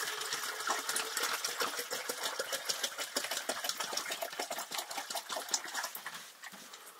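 Dense, rapid crackling clicks that start suddenly, hold, and fade away about six seconds in.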